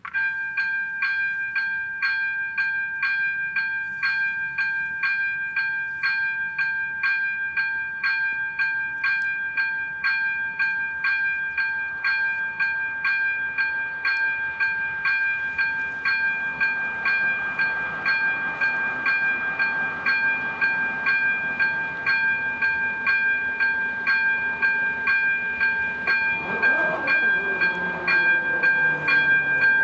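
Electronic warning bell of a Czech level crossing ringing in a fast, steady ding-ding pattern. It starts abruptly with the flashing red lights, warning of an approaching train. Near the end a lower rumble builds under it.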